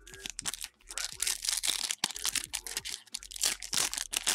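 Foil wrapper of a 2017-18 Ascension basketball card pack crinkling and tearing as it is ripped open by hand, a dense run of crackles.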